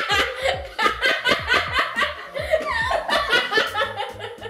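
Several young people laughing hard together in a fit of giggles, their laughs overlapping.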